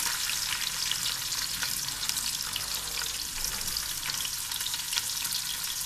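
Chopped onion and green capsicum sizzling as they go into hot oil with garlic in a nonstick pot: a steady crackle of frying with many small pops.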